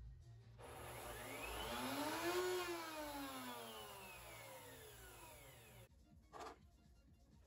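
Electric router motor mounted under a router table, spinning up with a rising whine and then winding down with a falling whine, cut off abruptly near the end. A short knock follows.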